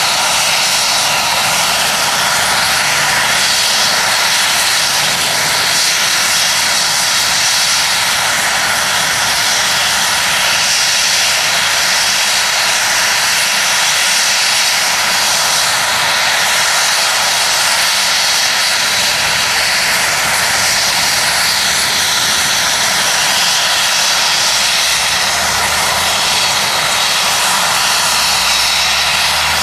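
UH-60 Black Hawk helicopter running on the ground, its twin turboshaft engines and turning rotor making a loud, steady whine and rush that holds unchanged throughout.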